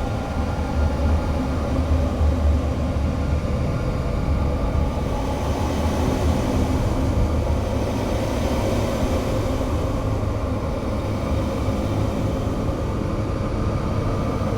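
Experimental noise-music drone: a dense, steady wall of noise with several held low and middle tones, changing little over the span.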